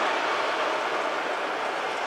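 A train running past: a steady rushing, hissing rail noise that slowly fades as it moves away.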